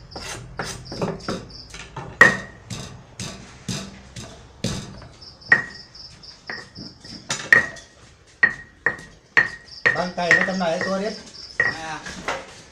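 Irregular sharp knocks with a short ringing tone, from a cleaver and a pestle at work during papaya salad preparation. A high, pulsing insect chirp runs underneath, and a voice comes in briefly near the end.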